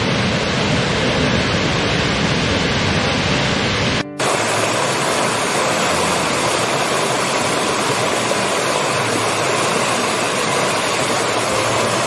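Large waterfall pouring with a full, steady rush rich in low rumble. About four seconds in it cuts abruptly to a small stream splashing over rocks, a brighter, hissier rush with little low end.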